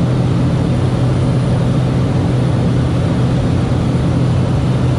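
Cessna 208 Caravan's PT6A turboprop engine and propeller running steadily, heard from inside the cockpit as an even, loud noise over a strong low hum.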